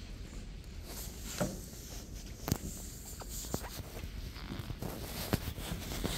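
Irregular footsteps and light knocks with clothing rustle as people walk up. A few sharp clicks stand out, the loudest about two and a half seconds in and again about five seconds in.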